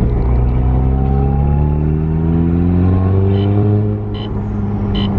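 MK7 Golf R's turbocharged 2.0-litre four-cylinder heard from inside the cabin, pulling away with its pitch rising steadily for about three seconds, then easing off around four seconds in. The engine is still cold and is not being pushed hard, and it now sits on new, stiffer engine and transmission mounts.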